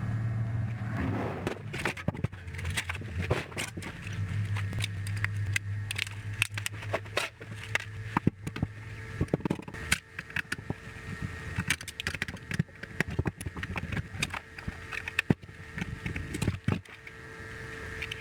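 Irregular clicks, knocks and scrapes of hand tools and parts being handled while an old TV/VCR/DVD combo is dismantled, over a low steady hum that stops about halfway through.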